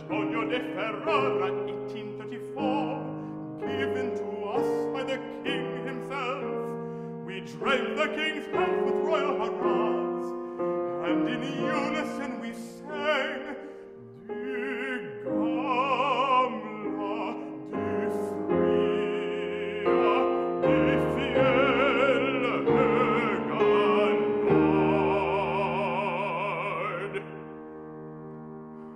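A baritone singing in classical art-song style with grand piano accompaniment. Near the end the voice holds a long note with wide vibrato, then stops, leaving the piano playing quietly.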